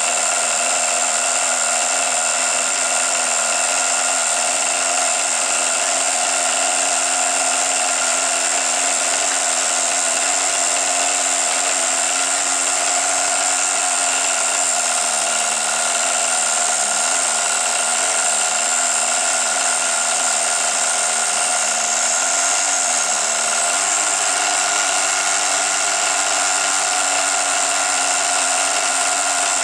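Nitro two-stroke glow engine of a Tamiya TGX 1/8 RC car running steadily with a high-pitched buzz, its pitch shifting slightly twice in the second half as the carburettor is being tuned.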